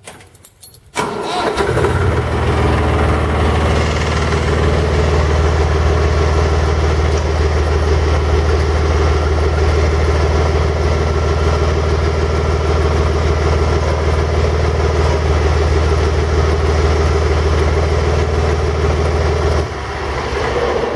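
Compact tractor's engine started with the key: it catches about a second in, then runs steadily. It drops to a quieter running about a second before the end.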